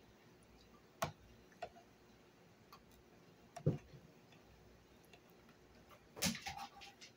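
Quiet eating at a table: a few scattered sharp clicks and knocks of a fork and spoon against plastic plates, the loudest a short cluster of knocks near the end.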